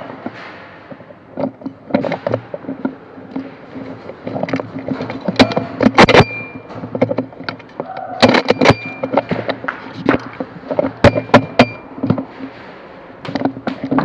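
Airsoft guns firing in an exchange: sharp pops and snaps in quick clusters, loudest in the middle and again about eleven seconds in, with a few more near the end.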